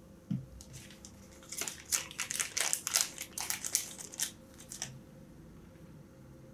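A soft knock, then about three seconds of crisp, irregular crinkling and rustling as a packet of synthetic dry-fly dubbing is handled and dubbing is pulled from it.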